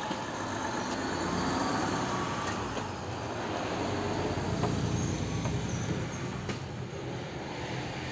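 A vehicle rumbling out of sight, swelling about two seconds in and again around five seconds in, with a faint thin whine over the first few seconds.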